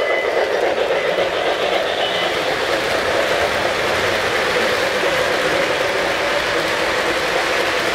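O-gauge model freight train rolling past close by, its tank cars and coal hopper cars making a steady rolling rumble on the track.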